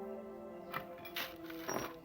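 Background music of sustained held tones, with a few short clicks or knocks about three-quarters of a second in, just past a second, and near the end.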